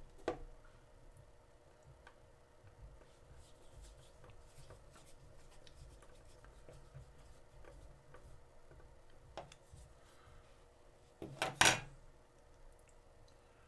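Faint clicks, taps and rubbing of small model-kit parts and a precision screwdriver being handled while a part is worked into place and screwed down, with a short cluster of louder knocks about eleven seconds in.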